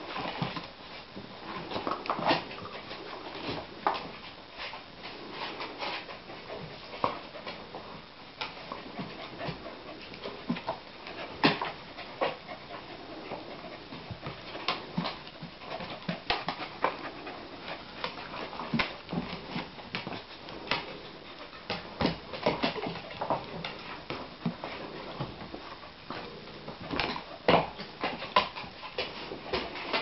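Two dogs play-fighting, with dog vocal sounds and many irregular sharp clicks and knocks from their paws and claws on a wooden floor.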